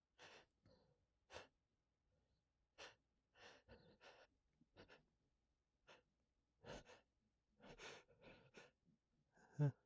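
A man's hitching, gasping breaths as a sneeze builds: short sharp breaths every half second to a second, ending near the end in a louder burst with his voice in it.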